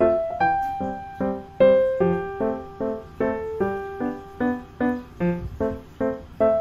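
Background music: a light keyboard tune of short, evenly repeated piano-like chords, about two to three a second, with a few held melody notes over them.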